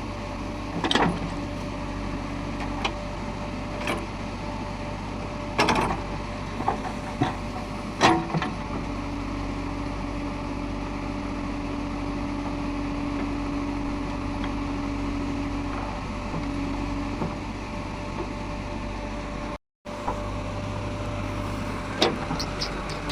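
JCB 3DX backhoe loader's diesel engine running steadily while it digs, with several sharp knocks and clanks over the hum, the loudest about a second in and about eight seconds in.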